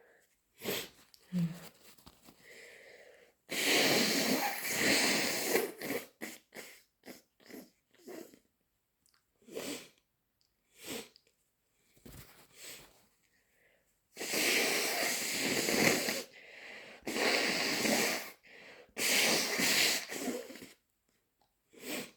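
A person with a cold blowing their nose hard into a tissue, four long blows of a second or two each, with short sniffs and breaths in between.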